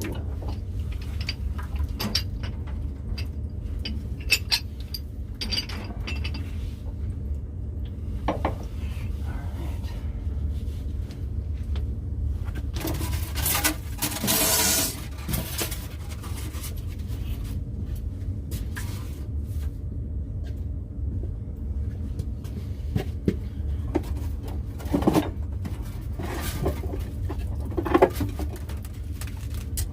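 Metal tools and plumbing fittings clinking and knocking during work on a well pressure-tank setup, over a steady low hum, with a brief hiss about halfway through.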